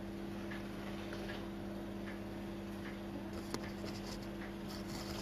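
Quiet room tone with a steady low electrical hum and faint scattered ticks. About three and a half seconds in there is a light click and a brief rustle.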